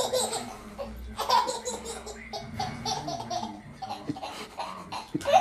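A baby laughing in a long run of short bursts, about four a second.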